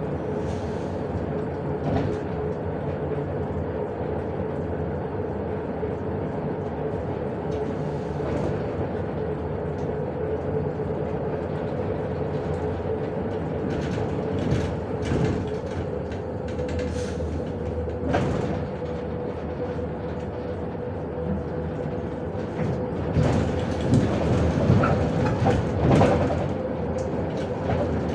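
Inside a MAZ-105 articulated city bus under way: steady engine and road noise with a constant whine running underneath. Short rattles and knocks come through now and then, more of them near the end.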